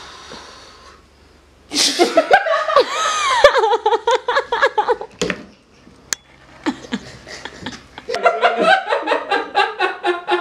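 Hearty laughter in fits of fast repeated bursts, dying down for a few seconds in the middle and then breaking out again.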